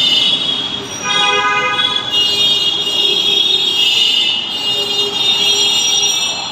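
Bangladesh Metro Rail train running at the station, with a steady high squeal and hiss from the wheels and a lower steady tone under it. A short horn-like tone of several pitches together sounds about a second in and lasts about a second.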